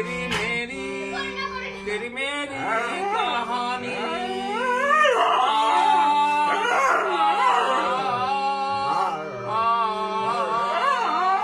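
A dog howling along with a man singing to a harmonium; the harmonium's reeds hold steady chords under the gliding voices.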